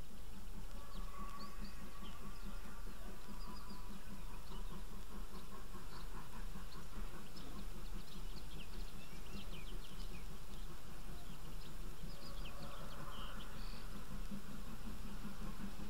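Small birds chirping and singing close by in short, scattered calls, over the steady distant rumble of a large, busy railway marshalling yard.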